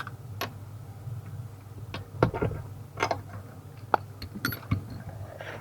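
Irregular sharp clicks and knocks of hand tools and metal fasteners while a steering column is being unbolted under a car's dashboard, over a steady low hum.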